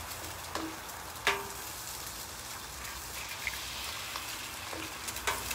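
Eggs sizzling steadily on a hot flat-top griddle, with a few sharp taps as eggshells are cracked, the loudest about a second in.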